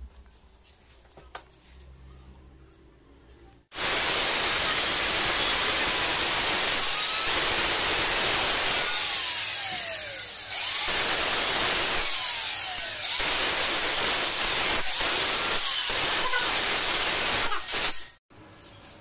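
Handheld angle grinder grinding the stainless steel handrail: a loud, steady, hissing grind with brief dips and slides in pitch as the disc works the metal. It starts about four seconds in after quiet room tone and cuts off abruptly shortly before the end.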